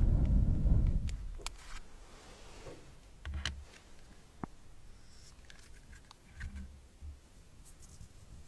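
Close-miked ASMR trigger sounds: a loud low rush for about the first second, then scattered soft clicks and small taps with a few muffled bumps.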